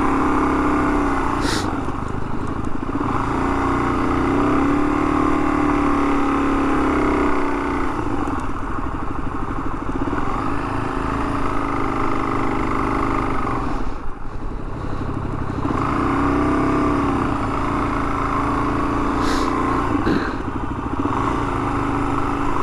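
Suzuki DR-Z400S single-cylinder four-stroke engine running while riding, its pitch rising and falling with the throttle, with a brief lull about two-thirds of the way through.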